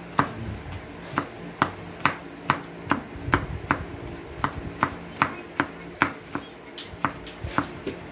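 Kitchen knife chopping a garlic clove on a wooden cutting board, the blade knocking against the board in a steady rhythm of about two to three chops a second.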